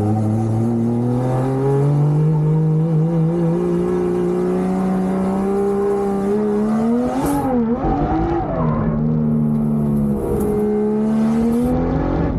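Drift car's engine heard from inside the cabin, the revs climbing steadily for several seconds, then swinging up and down sharply about seven seconds in with a short high burst of noise, dipping and climbing again near the end.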